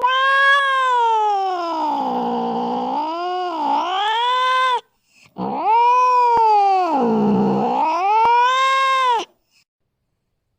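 Domestic cat giving two long, drawn-out yowling meows, each falling in pitch, wavering and rising again before cutting off, with a short pause between them.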